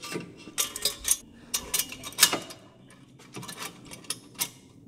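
Stainless steel exhaust pipes and a V-band clamp clinking against each other as the pipe joint is seated and the clamp fitted: a run of sharp, irregular metal-on-metal clinks.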